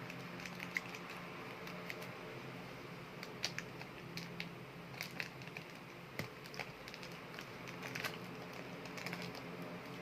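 Hands working air-dry craft clay: scattered small clicks and crackles, thickest in the middle, over a steady low hum.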